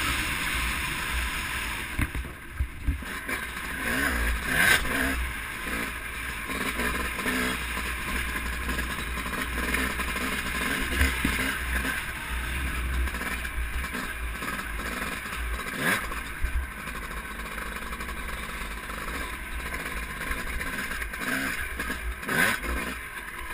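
Honda CR250R 250cc two-stroke single-cylinder dirt bike running at speed along a dirt track, mixed with wind noise, with a few sharp knocks from bumps.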